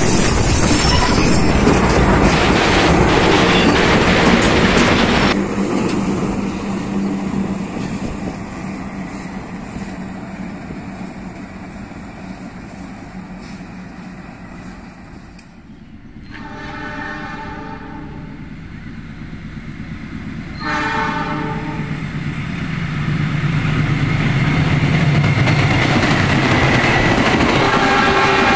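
A KAI CC206 diesel-electric locomotive and its train running past close by, stopping suddenly about five seconds in. Then, quieter, a distant approaching diesel locomotive sounds its horn twice, one long blast and one shorter. A long container freight train then grows louder as it runs past close by.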